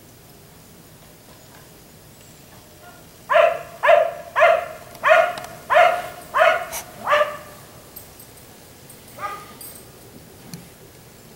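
A black Labrador retriever barking: after a few quiet seconds, a quick run of seven barks, a little under two a second, then one fainter single bark about two seconds later.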